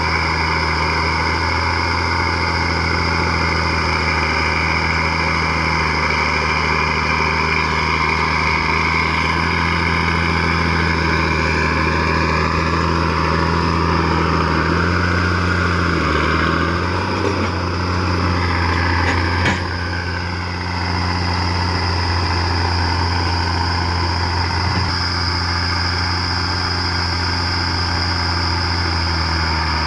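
Komatsu D50A crawler dozer's diesel engine running steadily as the machine pushes material. The engine pitch sags briefly twice past the middle, with a single sharp knock between the two sags.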